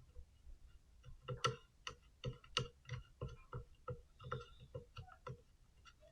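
Quick, irregular clicks and taps of small metal parts, about three or four a second, from a third-hand soldering tool as one of its flexible metal arms is fitted on.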